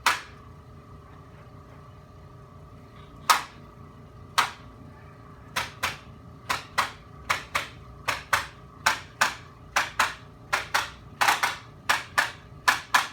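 A run of sharp, regular clicks from a spring-loaded chiropractic adjusting instrument being fired along the patient's neck. It starts with a few single clicks a second or more apart and settles into a steady string of about three a second, some in quick pairs.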